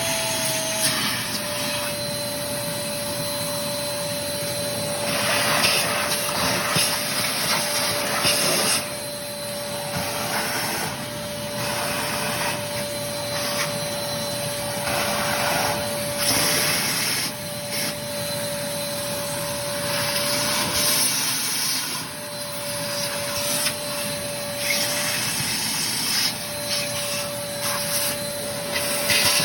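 A small electric motor runs with a steady high whine, cutting out briefly twice near the end, over an uneven rushing hiss of water or air.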